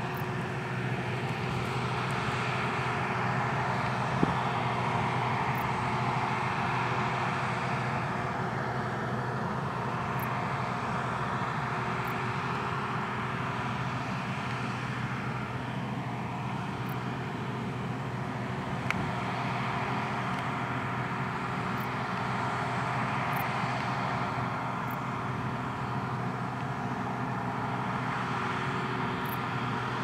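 Claas Dominator 108 combine harvester running steadily while harvesting wheat: a continuous engine and machinery drone with a constant low hum.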